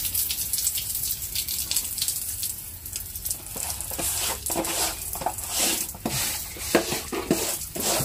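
Thin stream of water from a garden hose hissing and spattering onto a wet terracotta-tiled floor, with uneven splashes from about halfway through.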